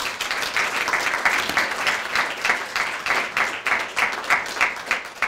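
Audience applauding, thinning out toward the end.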